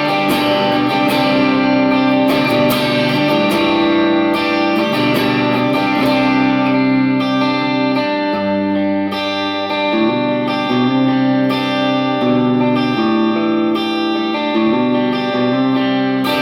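Electric guitar, a 1996 Ibanez Talman in the middle pickup position with the Lambertone Crema neck and Grinder bridge humbuckers both on, not coil-tapped, playing ringing chords and notes that change every second or so.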